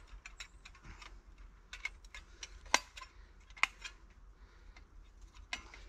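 Thin metal parts of a folding wood-burning box stove clicking and clinking as they are handled and fitted together, with two sharper clicks in the middle.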